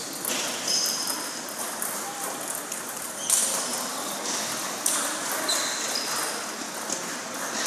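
Table tennis balls clicking on tables and paddles at several tables at once, light irregular ticks over a background of crowd chatter, with a few short high squeaks.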